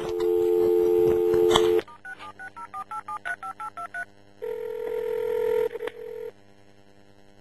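Telephone line heard over the phone: a steady dial tone, then about ten quick keypad tones as a number is dialled, then one ring of the ringback tone about four and a half seconds in.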